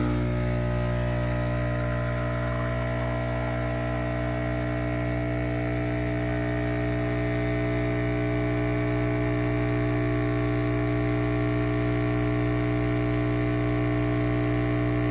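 Breville Infuser espresso machine's vibratory pump humming steadily while pulling an espresso shot.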